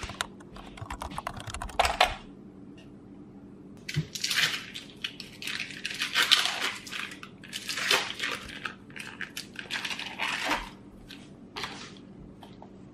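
A glass mixing bowl clinking on a digital kitchen scale, and cream cheese being added to it, with irregular clatters and rustles in two bursts of activity.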